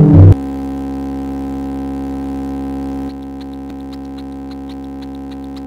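A steady electronic hum, a drone of many held tones with no change in pitch, that drops a little in level about three seconds in. It is cut in abruptly after a brief loud run of falling synthesizer notes at the very start.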